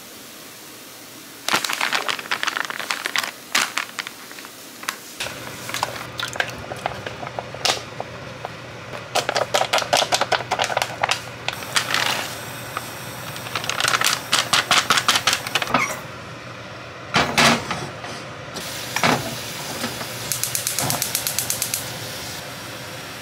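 Plastic meal-kit packaging handled and emptied: bags crinkling, rattling and clicking in repeated bursts, with vegetables tipped from a plastic bag into a pan of soup. A steady low hum comes in about five seconds in and holds.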